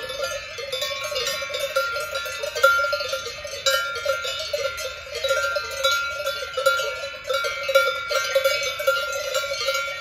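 Many cowbells worn by grazing cattle clanging at once, an irregular, overlapping jangle of bells at several different pitches as the animals move their heads while feeding.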